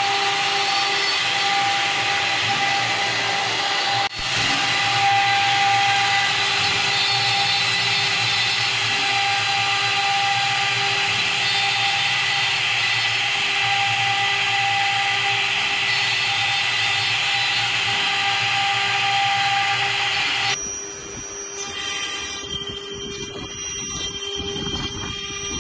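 CNC router spindle running, a steady whine of several tones over a hiss. It breaks off briefly about four seconds in, and about twenty seconds in it gives way suddenly to a quieter, more uneven sound.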